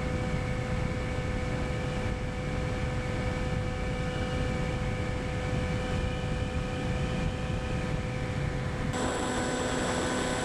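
Onboard sound of a Skywalker RC plane in flight: its Rimfire .25 brushless outrunner motor and APC 10x7e propeller give a steady whine over wind rush. About nine seconds in the sound switches abruptly to a different steady whine with other pitches.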